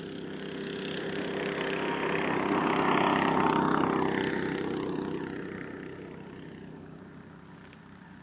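An engine passing by: its noise swells to a peak about three seconds in, then fades away over the next few seconds.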